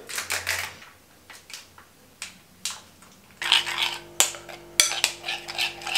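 A spoon stirring dressing in a ceramic bowl, scraping and clicking against the sides, with a few light handling clicks at the start. A little past halfway a refrigerator's steady hum comes in underneath, humming unusually much.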